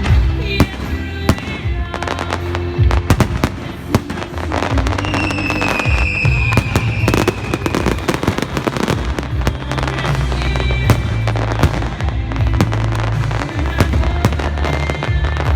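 Aerial fireworks shells bursting and crackling in rapid, dense succession over loud music with a steady bass. A whistling tone falls gently about five seconds in.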